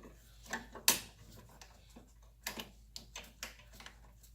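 Metal clicks and taps of fuel-line fittings and tools being handled. One sharp click comes about a second in, and several lighter ones come close together in the second half.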